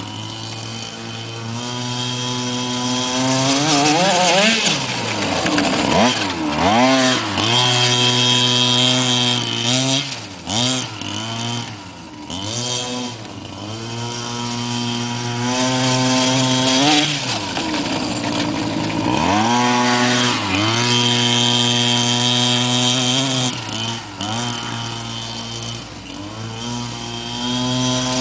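Small two-stroke petrol engine of a 1:6-scale gas-powered RC desert truck running hard. The revs dip and climb again and again as the throttle is worked, with stretches held at steady high revs in between.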